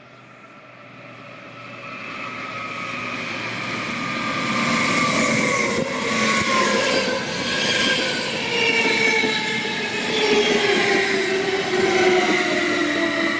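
Double-deck S-Bahn Zürich electric train approaching and passing close by, growing louder over the first few seconds into a steady rumble of wheels on rails. Several whining tones slowly fall in pitch as it slows into the station.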